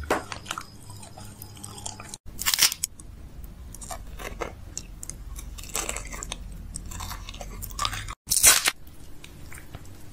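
Close-miked chewing and biting of sweets, chocolate and a hard candy: moist mouth clicks with crunchy bites, the loudest about two and a half and eight and a half seconds in.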